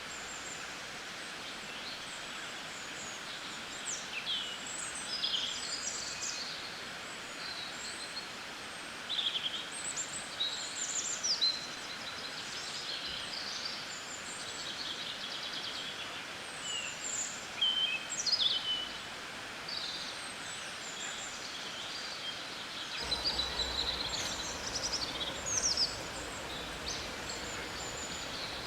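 Several songbirds chirping and singing in quick, short phrases over a steady background hiss. About three-quarters of the way through, a low rumble joins underneath.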